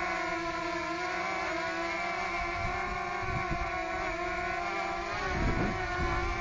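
DJI Mavic Mini's four propellers and motors whining steadily as the drone hovers. The pitch wavers slightly as it holds position. About five seconds in, low gusts of wind rumble on the microphone.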